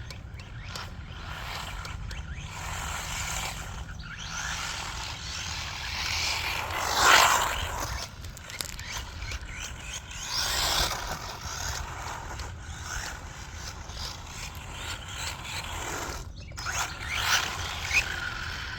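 Hospeed HS16-81 Tornado 1/16-scale RC short course truck with a 3800kv brushless motor on 3S, driving past several times at speed. Its motor and tyre noise swells and fades with each pass, the loudest about seven seconds in and others near ten and seventeen seconds.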